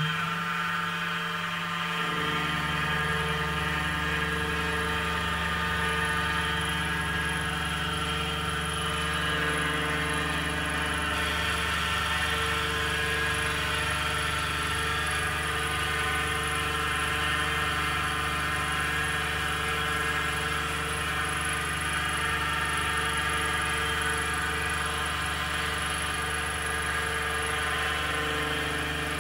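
PM-25MV milling machine's spindle running while a CNC end mill cuts aluminium: a steady whine made of many tones, with a deeper hum joining about two seconds in.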